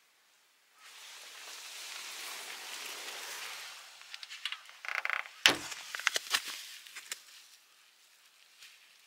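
A steady hiss, then a run of clicks and knocks inside a small van, with one heavy thump about halfway through.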